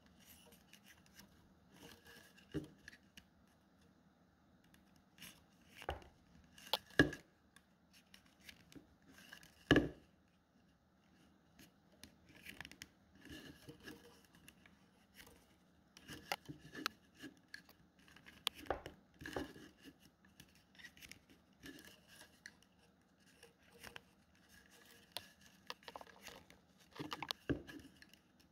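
Flat rattan strips rubbing and creaking against a bamboo tube as the woven band is pulled tight by hand, with scattered sharp clicks and rustles, the loudest about 7 and 10 seconds in.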